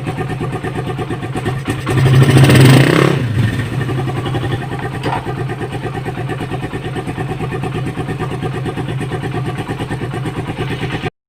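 Motorcycle engine idling with an even, rapid pulse, revved briefly about two seconds in and then settling back to idle. This is the check that the newly routed throttle cable does not raise the revs when the handlebars are turned.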